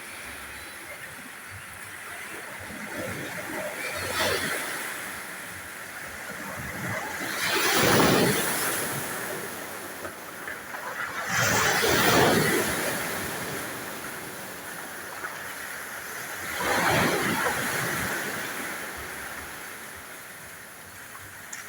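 Sea waves breaking and washing ashore: a steady surf hiss with four swells of louder crashing, about 4, 8, 12 and 17 seconds in, the ones near 8 and 12 seconds the loudest.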